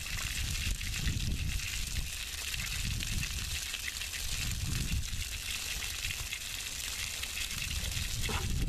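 Water spraying steadily from a garden hose spray nozzle onto dry ground, a continuous hiss, with wind buffeting the microphone in low gusts.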